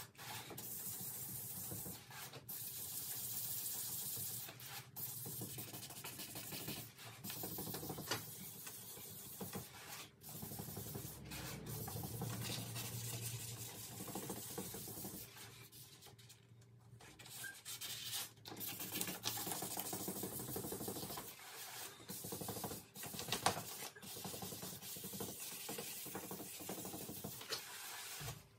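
Sanding on car bodywork: a rough, hissing rub that comes in strokes with short breaks, the longest break about sixteen seconds in.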